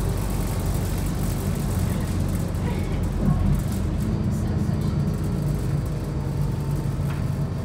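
Cummins ISC six-cylinder diesel and ZF 6HP504 Ecomat automatic gearbox of a Bustech XDI bus under way, heard from inside the cabin: a steady engine and drivetrain drone with road noise. Its pitch shifts about three seconds in.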